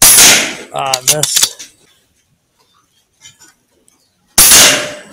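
Two air rifle shots about four and a half seconds apart, each a sudden crack trailing off over about half a second.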